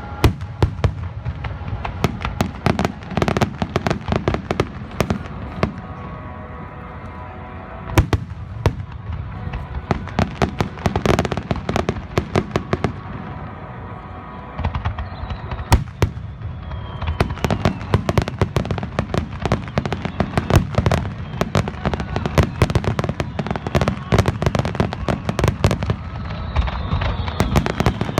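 Fireworks display: rapid sharp cracks and booming bursts over a low continuous rumble, thinning briefly a couple of times. A faint falling whistle comes about halfway through.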